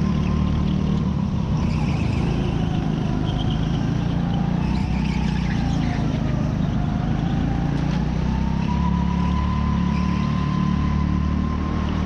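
Indoor hire go-kart's engine running under way, heard from on board, its pitch dipping around the middle as the kart slows into a corner and rising again as it accelerates out.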